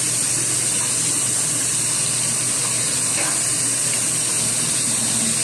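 Water running steadily from a tap, an even splashing hiss that does not let up.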